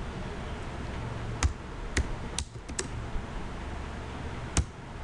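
Slow, scattered typing on a computer keyboard: about six separate keystrokes, unevenly spaced, over a steady low hum.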